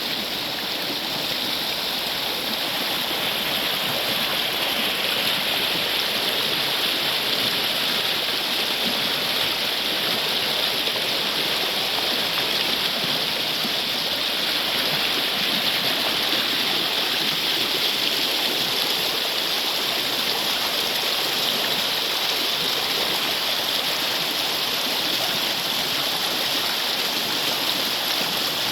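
Water rushing steadily without a break.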